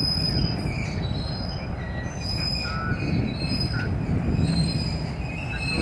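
Freight train's empty center-beam flatcars rolling past with a continuous low rumble of steel wheels on rail. Thin, high, steady squeals from the wheels come and go over it.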